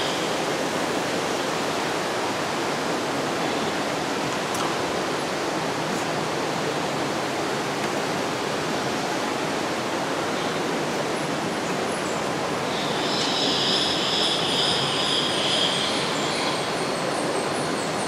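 A steady rushing hiss of the kind made by falling water or misting in a humid greenhouse, with a high, shrill sound joining in for a few seconds near the end.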